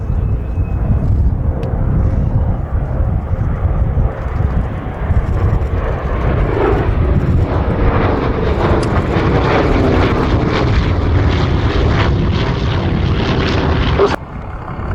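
Douglas A-26 Invader's twin Pratt & Whitney R-2800 radial piston engines droning in a fly-past, building up and falling in pitch as the aircraft passes. The sound drops off suddenly near the end.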